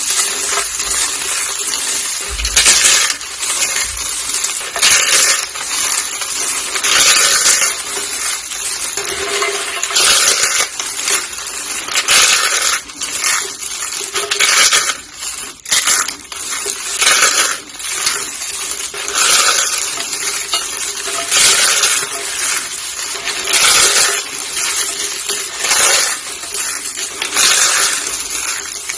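Pink soap roses and soap curls being crushed, a continuous crackly crunching with a louder surge every two seconds or so.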